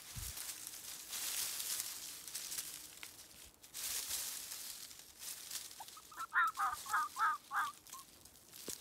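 Dry forest leaf litter rustling as a fox kit moves about on it. About six seconds in, a quick run of five short calls comes at roughly three a second, louder than the rustling.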